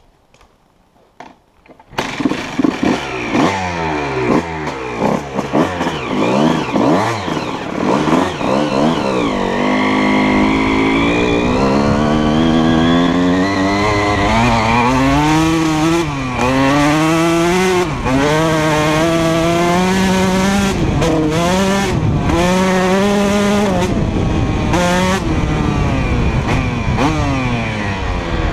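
2004 Honda CR125R's 125 cc two-stroke single-cylinder engine with a full Pro Circuit exhaust. After about two seconds of near quiet the engine comes in loud, revving up and down in quick blips, then pulls away with its pitch climbing through each gear and dropping at every shift.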